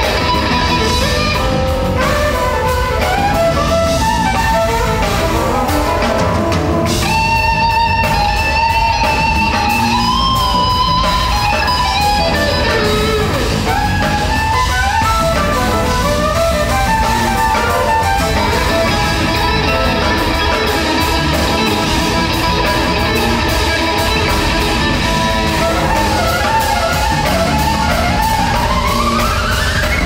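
Live jazz-rock fusion band playing loudly: electric guitar lead lines with bends over drum kit and keyboards, with a rising glide near the end.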